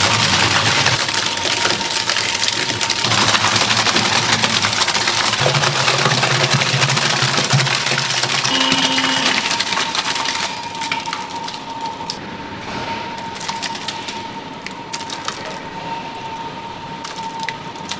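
Automated food-factory machinery running, a dense clattering noise over a steady high whine; the noise drops noticeably about ten seconds in.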